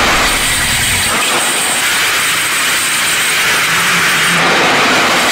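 Loud, steady rushing hiss with no clear pitch.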